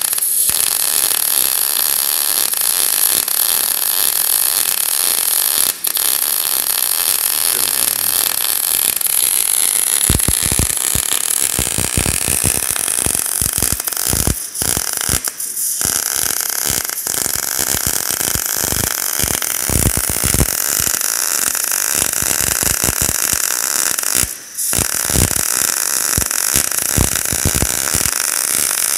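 MIG welding arc from a Merkle MobiMIG 180K running its ColdMIG short-circuit process: a steady crackling hiss that turns coarser about ten seconds in and breaks off briefly a few times.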